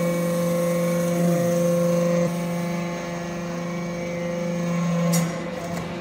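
Vertical hydraulic briquetting press for aluminium chips running: a steady hum from its hydraulic power unit. The tone shifts and drops a little about two seconds in, and a short hiss comes near the end.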